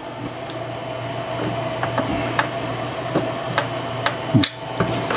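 Small electric screwdriver running steadily as it backs a screw out of the computer's metal shield plate, with a few light clicks and a louder knock about four seconds in.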